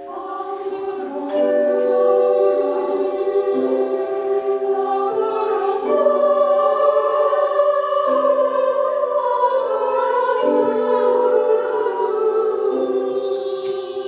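A choir singing slow, sustained chords in several parts, the harmony shifting every second or two. Near the end, a high shimmer of chimes sweeps downward.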